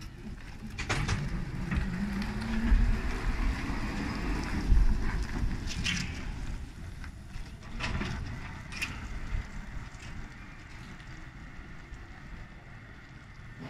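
Double-deck trolleybus pulling away, the whine of its electric traction motor rising in pitch as it gains speed over the first few seconds, over a low rumble. A few sharp clicks and knocks are heard, and the sound fades as it drives off.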